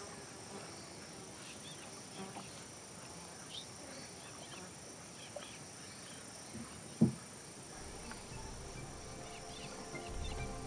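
Rainforest ambience: a steady high insect chorus with scattered short chirps and calls. A single sharp knock about seven seconds in is the loudest sound, and music fades in near the end.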